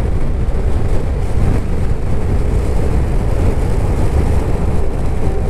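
Suzuki Burgman 650 scooter running at a steady road speed, its engine a faint steady hum under a loud, even rumble of wind buffeting the microphone.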